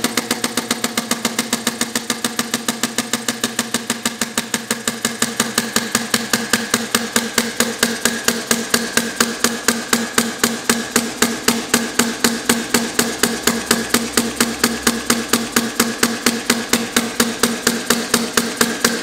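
Compressed-air-powered inverted hit-and-miss model engine running in straight four-stroke mode, a sharp pop at each firing as its quick-release dump valve admits air to the cylinder. The beat slows after the first few seconds as the air is throttled back toward a slow idle, settling to about four pops a second.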